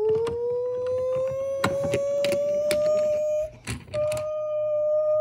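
Siren wail that has just wound up in pitch and now holds a steady tone, breaking off for a moment about three and a half seconds in and then resuming at the same pitch. Sharp clicks and knocks of the toy fire trucks being handled and rolled across the floor are scattered through it.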